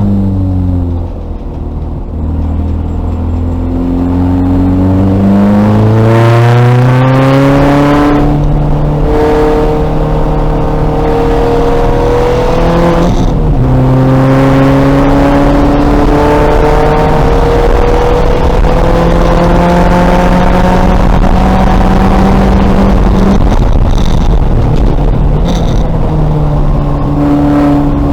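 Race car engine under hard driving. The revs fall as the car slows, then climb, with two sharp drops at upshifts, and settle into a long, slowly rising pull.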